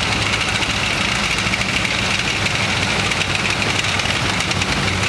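A column of tracked armoured vehicles driving past at close range: the steady drone of their diesel engines, with a rapid fine clatter from the tracks on the road.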